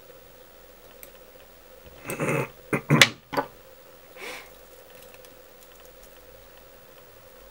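Hands handling fly-tying tools and materials at the vise: a short rustle about two seconds in, then three sharp clicks and a softer rustle a second later, over a faint steady hum.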